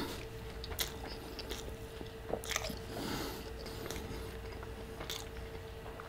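A man chewing a mouthful of breakfast burrito (chorizo, egg and hash brown in a flour tortilla), with scattered soft wet mouth clicks and smacks. A faint steady hum runs underneath.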